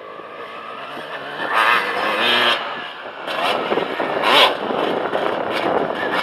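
Motocross bike engine revving hard and easing off again and again as the bike rides the dirt track, with the loudest bursts from about one and a half to two and a half seconds in and again about four seconds in.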